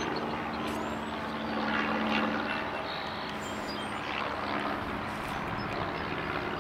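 Steady drone of highway traffic, with an engine hum from a passing truck loudest about two seconds in.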